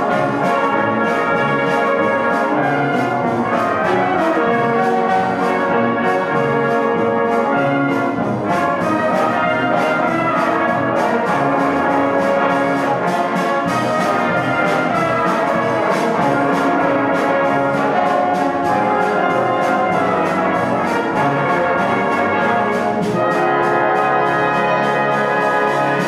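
Full brass band of cornets, horns, euphoniums, trombones and tubas playing a lively arrangement, ending on a held final chord in the last few seconds.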